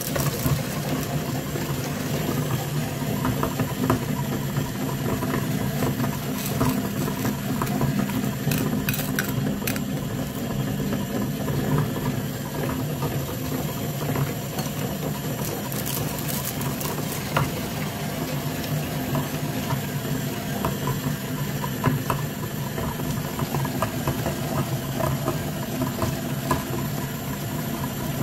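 Electric meat grinder running steadily, its auger crushing candy-coated chocolates into paste, with scattered cracks and crunches from the candy shells over the motor's hum.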